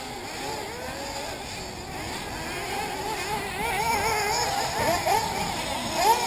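Several 1/8-scale nitro RC buggies' small two-stroke glow engines whining at high revs, their pitch rising and falling as the cars accelerate and lift off, with quick rising revs about five and six seconds in.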